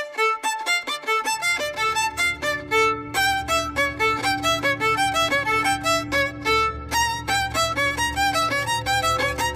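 Instrumental music: a quick melody of short, rapidly changing notes over a low steady bass that comes in about a second in.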